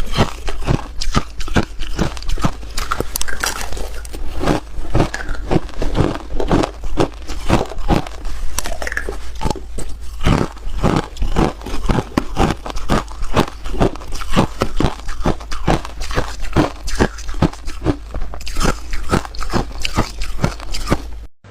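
Close-up crunching of ice being bitten and chewed: a rapid, uneven run of sharp crunches, about two to three a second, that cuts off abruptly near the end.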